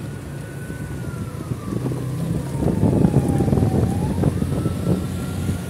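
Vehicle engine running under a steady high whine that sinks slowly in pitch and jumps back up about four seconds in, over a low rumble with wind on the microphone.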